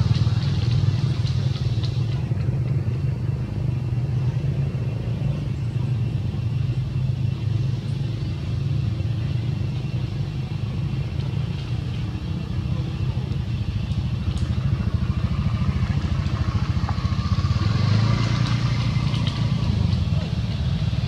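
A motor engine running steadily with a low drone that does not let up.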